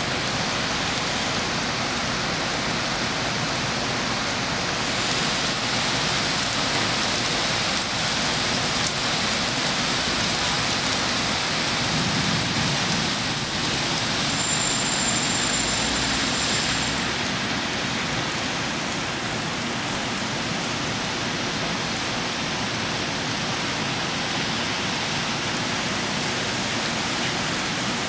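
Steady rain falling on a wet concrete sidewalk and railing, an even hiss of splashing drops, with a few brief ticks.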